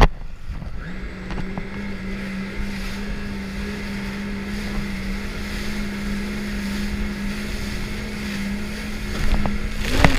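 Jet ski engine running under way. The note climbs about a second in and then holds steady, over water spray hissing along the hull and wind buffeting the microphone.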